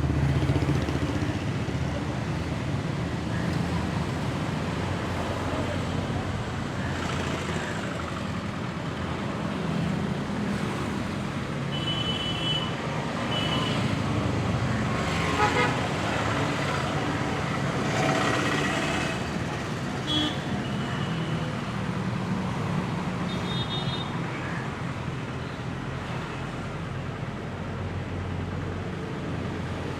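Steady road traffic noise, with several short vehicle horn toots sounding on and off.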